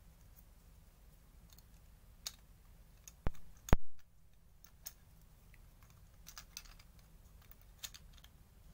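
Small plastic and diecast toy-car parts clicking and tapping against each other as they are handled and fitted together, with two sharp, louder clicks about three and a half seconds in.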